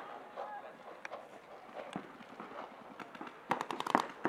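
Paintball markers firing: a few single shots about a second apart, then a quick burst of shots near the end.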